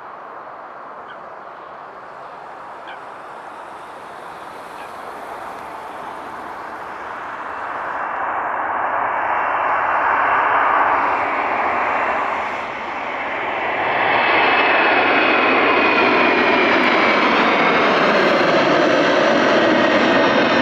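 Large jet airliner's engines at takeoff power, the roar building from faint to loud over the first half as the aircraft approaches. After a brief dip it holds loud and steady, with a high engine whine that slowly falls in pitch.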